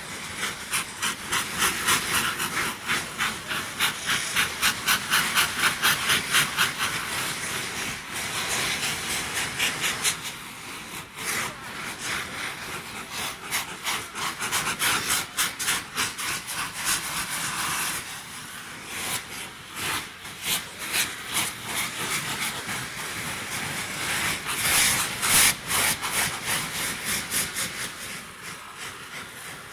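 Saites, the homemade cardboard rockets packed with gunpowder, hissing loudly as they spew sparks, with a dense run of rapid crackling pops. The sound swells in waves and is loudest a few seconds in and again near the end.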